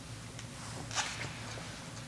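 A single faint click or tap about a second in, over a low steady hum.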